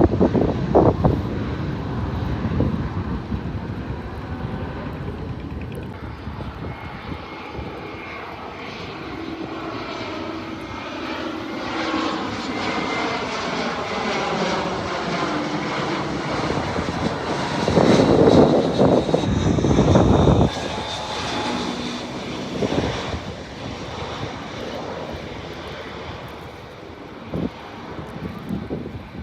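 Jet airliner flying low overhead on landing approach, its engine whine falling slowly in pitch as it passes. The noise is loudest about eighteen to twenty seconds in, then drops off abruptly.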